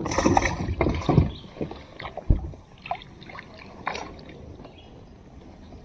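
Knocks and rattles on a small fishing boat, a cluster in the first second and a half, one more knock a little after two seconds, then a few light clicks.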